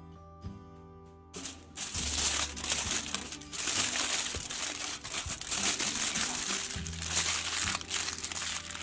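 Aluminium foil being crinkled and folded by hand around a buttered potato, a loud, irregular crackling that starts about a second and a half in, over quiet acoustic guitar music.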